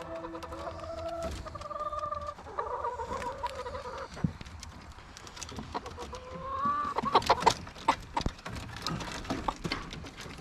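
Hens clucking and calling, with a short burst of louder squawks about seven seconds in.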